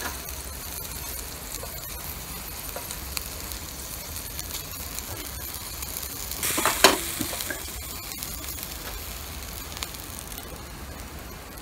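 Chicken-and-leek yakitori skewers sizzling over a grill fire, with scattered small crackles and one louder burst about six and a half seconds in.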